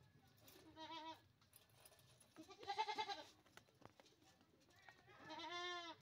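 Young goat bleating three times, the middle bleat the loudest with a wavering pitch.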